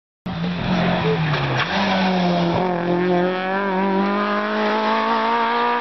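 Citroën AX rally car's engine revving hard under acceleration; the pitch drops at a gear change about a second and a half in, then climbs steadily as the revs build.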